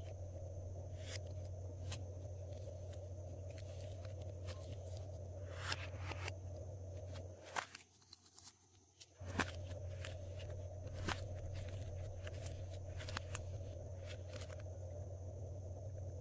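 Glossy slime being mixed: scattered sticky clicks and small pops over a steady low hum. The hum drops out for about a second and a half around the middle.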